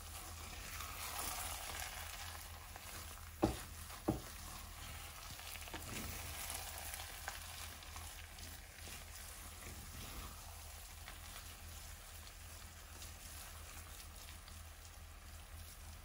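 Wooden spoon stirring and scraping jollof rice in a metal pot, the rice sizzling on the heat as it steams. Two sharp knocks of the spoon against the pot, about half a second apart, a few seconds in.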